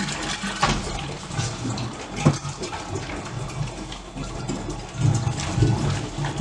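Water gushing and glugging out of a large upturned plastic water jug into a ceramic water-dispenser crock as the jug is set on it. A couple of knocks come from the jug being handled on the crock.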